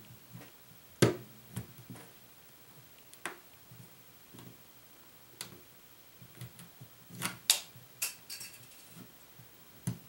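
Irregular plastic clicks and snaps as a guitar pick and a small pry tool are worked around the edge of a Nexus 4 phone's back case to pry it off. The sharpest snap comes about a second in, with a quick cluster of clicks around seven seconds.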